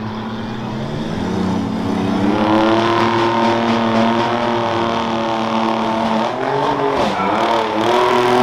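Rough-truck pickup engine revving hard as the truck accelerates over a dirt course. The pitch climbs about two seconds in and holds high, drops briefly near the end and climbs again.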